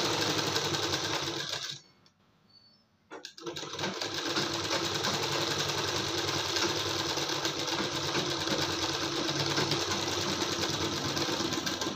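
Sewing machine running steadily as it stitches a binding strip along a blouse neckline. It stops for about a second and a half near two seconds in, then starts again.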